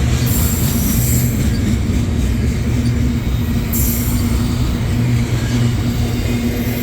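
Freight train rolling past: a steady, heavy rumble and hum of the cars on the rails, with brief high-pitched wheel squeals right at the start and again about four seconds in.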